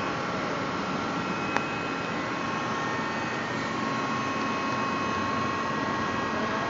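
5-axis CNC machine running: a steady whirring noise with a few high, steady whines over it, and one sharp tick about a second and a half in.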